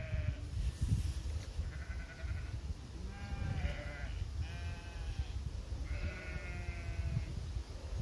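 A flock of sheep bleating: about five drawn-out bleats of roughly a second each, at differing pitches, over a steady low rumble.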